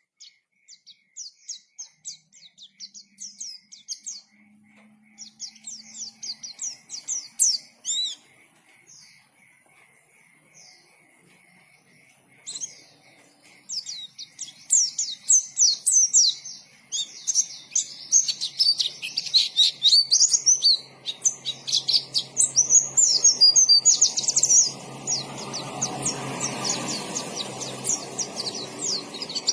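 White-eye (pleci) singing: fast runs of high, rapid chirps and twitters. There is a lull of a few seconds about a third of the way in, and then the song grows denser and nearly continuous.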